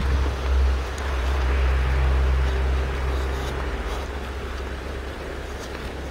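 Low, steady car engine hum and road rumble that eases off about three and a half seconds in.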